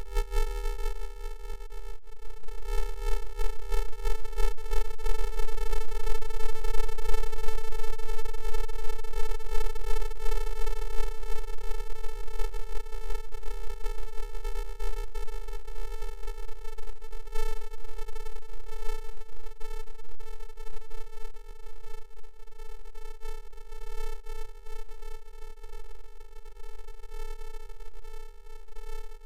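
A single steady electronic tone held at one pitch over a low hum, swelling over the first few seconds, then slowly fading before it cuts off abruptly.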